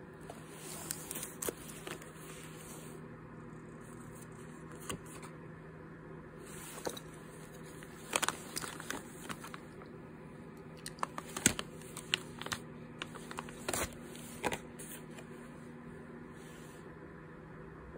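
Plastic snack and pet-treat packets and paper cards crinkling and rustling as they are handled, in short irregular clusters of crackles, the loudest about two-thirds of the way through.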